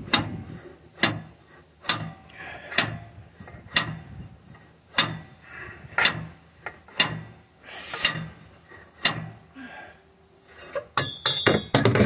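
A steel flatbed winch bar striking the starter motor on a Cummins ISX engine, about ten blows roughly a second apart, then a brief metallic clatter near the end. The starter only clicks and won't crank the engine, and the owner believes it is failing; the blows are meant to jar it into engaging.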